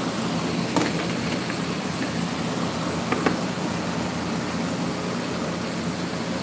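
Electric fan blowing steadily, a constant whooshing hum, with two short knocks about a second and three seconds in.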